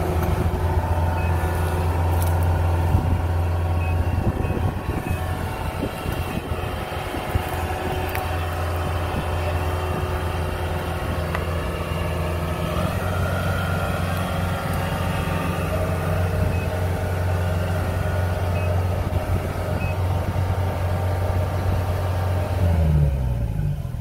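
Kubota DC-70 combine harvester's diesel engine running steadily at working speed. Near the end it is throttled down and its pitch falls.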